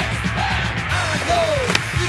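Background music with a steady bass line and bending high notes, with a sharp knock at the start and another near the end.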